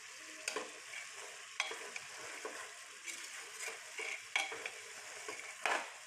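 Chickpeas frying with spices in oil in a pan, with a steady sizzle. A spatula stirs them, scraping against the pan at irregular strokes; the longest scrape comes near the end.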